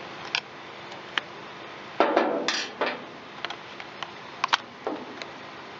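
Metal tool clicking and scraping against the plastic top cover of an Echo CS-355T chainsaw as the cover is worked loose: scattered sharp clicks, with a louder scrape lasting about a second, about two seconds in.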